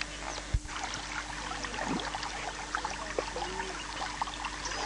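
Water trickling and babbling, a dense patter of small splashes over a faint steady hum, with a single low thump about half a second in.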